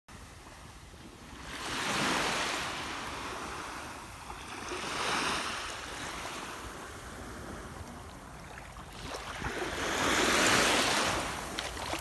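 Small sea waves washing up on a sandy beach: three swells of surf that rise and fade, the loudest about ten seconds in.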